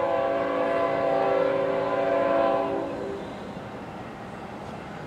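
Air horn of an approaching BNSF Tier 4 locomotive sounding one long multi-note blast that fades out about three seconds in.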